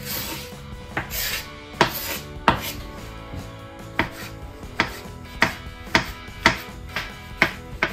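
Chef's knife chopping on a bamboo cutting board, slicing through button mushrooms: a sharp knock of the blade on the board about twice a second, steady from about halfway through.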